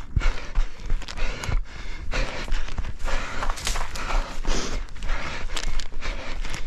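An orienteer panting hard while running, with irregular running footsteps and rustling close to a head-mounted camera's microphone.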